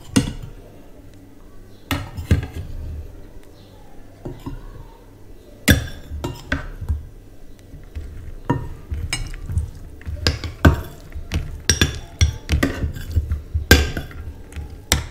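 Metal serving spoons and a ladle clinking and scraping against ceramic bowls and plates as curry is dished out onto rice. The clinks are scattered at first and come thicker in the second half.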